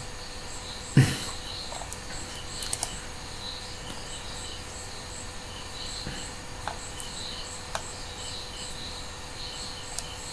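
Insects chirping in a steady, evenly pulsing rhythm in the background, with a few sharp clicks, the loudest about a second in.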